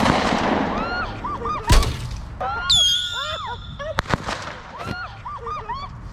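Fireworks going off: a loud bang at the start and another just under two seconds in, a high whistle that drops and then holds about three seconds in, and a sharp crack a second later. Many short rising-and-falling tones run throughout.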